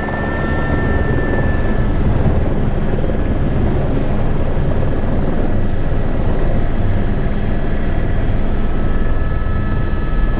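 Helicopter running steadily: a loud, even rumble of rotor and engine.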